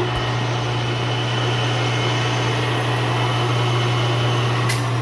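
Clausing Colchester 15" x 50" lathe running steadily with its spindle set at 840 RPM, a strong steady low hum. A short click sounds near the end.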